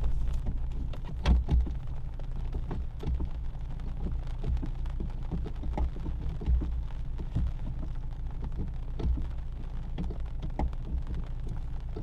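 Lada Niva engine running low and steady inside the cabin, with rain ticking irregularly on the roof and windscreen.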